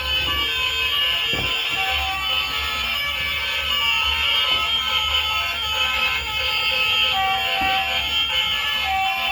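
Toy vehicles sounding electronic alarm-like tones through small tinny speakers, steady and fairly loud, the pitches changing every so often, with a few light knocks.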